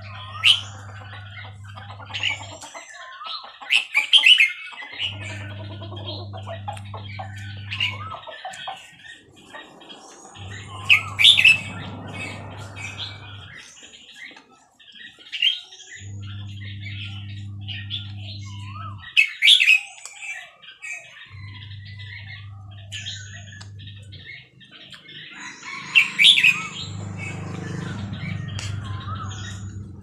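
Caged Burmese-strain red-whiskered bulbul singing: loud bright whistled phrases every few seconds, with softer chirps and twitters between them.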